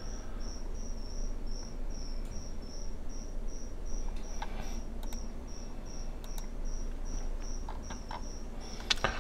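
A cricket chirping steadily in the room, short high chirps about three a second, over a low background hum, with a few faint clicks.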